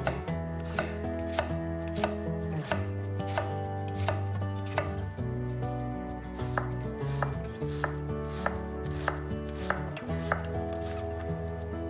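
A knife chopping food on a cutting board: sharp cuts about one to two a second, over instrumental background music.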